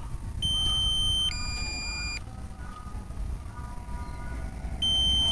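Drone remote controller's low-battery warning sounding a two-tone alert: two steady electronic notes in a row, each just under a second long, with the pair repeating about four and a half seconds later. It signals that the drone's battery is nearly empty.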